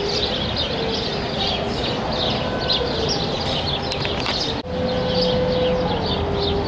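Birds chirping busily, many short calls a few times a second, over steady street ambience. A held low tone that steps up and down in pitch runs underneath, louder after a brief dropout about two-thirds through.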